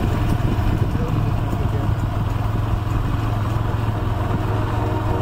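Motorcycle engine running steadily while riding, with wind noise over the microphone.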